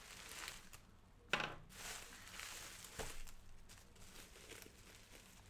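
Packaging rustling and crinkling as it is cut open, with a sharp click a little over a second in and a smaller one about three seconds in.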